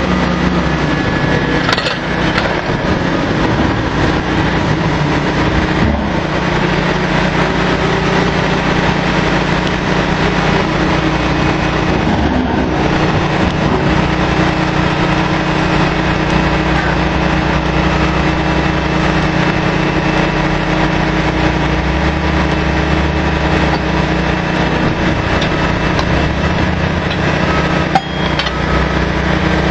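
Steady, loud drone of drilling-rig machinery running on the rig floor while casing is run. Near the end there is a single sharp metallic clank.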